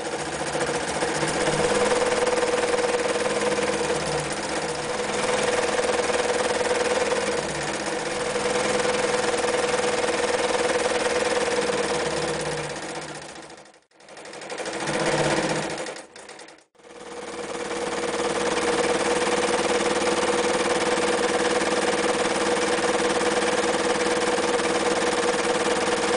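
Reads Z233 electric sewing machine running steadily, sewing a zigzag stitch through dark fabric. About halfway through it stops, runs again for a moment, stops, then starts up and sews on steadily.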